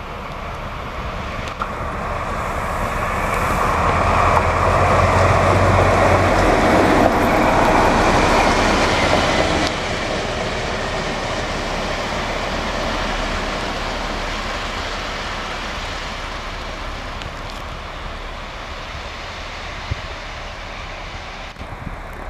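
Two coupled DB class 218-family diesel-hydraulic locomotives running light, with engine noise and the rumble of wheels on rail. It swells as they pass, loudest for several seconds with a steady low engine hum, then drops off abruptly about ten seconds in and slowly fades.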